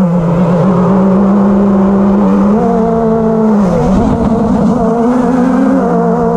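Electric motors and propellers of an FPV quadcopter buzzing, heard close from the onboard camera: several near-pitch whines together, stepping up slightly about two and a half seconds in and dipping briefly around four seconds as the throttle changes.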